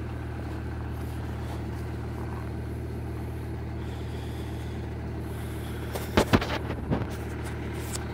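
Volvo V70 2.4 D5 five-cylinder turbodiesel idling steadily just after a cold start in about minus 18 °C. A few brief knocks come about six to seven seconds in.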